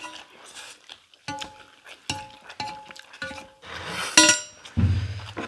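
Wooden chopsticks clinking and tapping against stainless steel plates of noodles: a series of short taps that each leave a brief metallic ring, the loudest and brightest about four seconds in.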